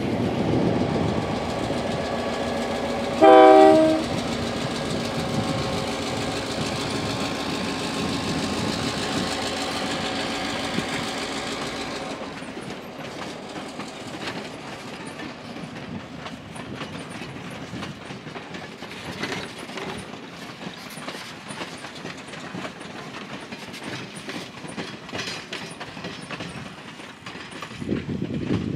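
EMD GP9 diesel locomotive's two-stroke V16 running as it hauls a string of heritage passenger coaches, with one short horn blast about three seconds in. After about twelve seconds the engine sound drops away and the coach wheels clatter and click over the rail joints as the cars roll by.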